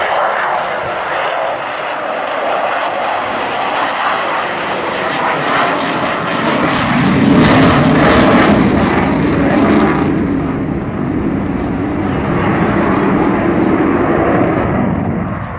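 Avro Vulcan bomber's four Rolls-Royce Olympus turbojets roaring as it flies a display pass overhead. The jet noise swells to its loudest about seven to ten seconds in, with a deep rumble, then eases off.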